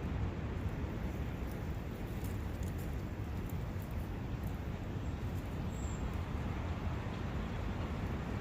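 Forest ambience of steady wind with brook water, a continuous rushing noise heaviest in the low end. A faint, brief high peep comes about six seconds in.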